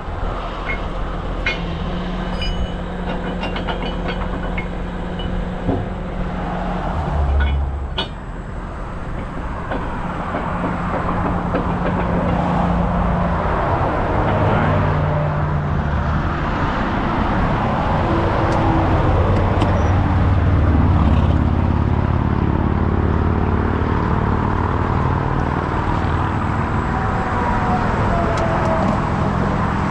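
Heavy rotator tow truck's diesel engine running under hydraulic load, its pitch stepping up and down as the boom winch lifts the front of a wrecked dump truck. Interstate traffic passes steadily, and there are a few metallic clanks in the first several seconds.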